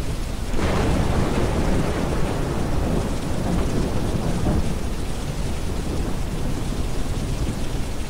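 Rolling thunder breaks in about half a second in and rumbles away slowly over several seconds, over steady rain and a deep, steady brown-noise bed.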